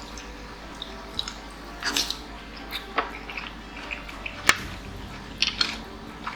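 A person eating: chewing and wet mouth sounds with a few short clicks, the sharpest about four and a half seconds in.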